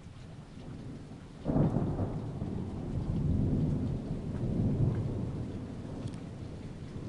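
Thunder breaks suddenly about a second and a half in and rumbles on with a couple of swells for several seconds before fading, over steady rain.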